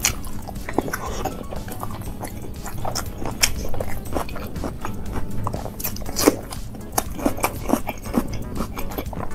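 Close-miked mouth sounds of eating rice and curry by hand: wet chewing with irregular crisp crunches, as from bites of raw onion, the sharpest about three and a half and six seconds in.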